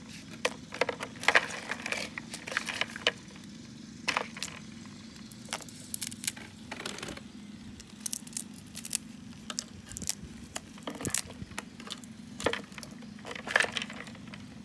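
Irregular sharp clicks and crackles over a low steady hum.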